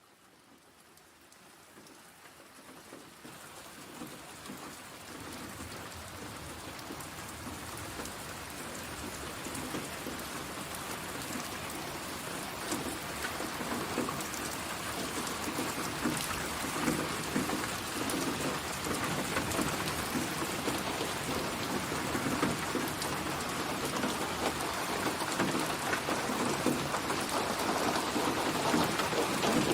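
Steady rain pattering, rising from faint to full over the first ten seconds or so and then holding even.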